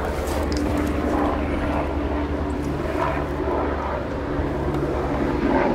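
A steady engine drone: a low hum with a few held tones above it, barely changing.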